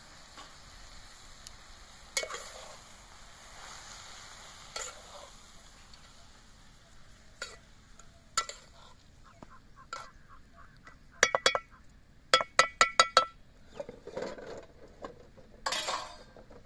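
Metal spoon stirring fenugreek greens and soaked moong dal in a steel pot, scraping at the bottom. About two-thirds of the way in, the spoon clinks against the pot in two quick runs of sharp, ringing taps.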